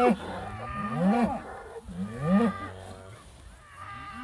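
British White cattle bellowing: three short calls, each rising and then falling in pitch, about a second apart, over a lower steady lowing from other cows. The herd is worked up over an old cow hide hanging on the hay ring.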